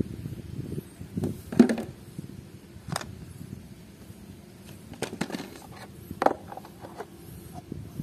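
Muddy toys being picked up and knocked against a tray: a few scattered light knocks and wet handling sounds.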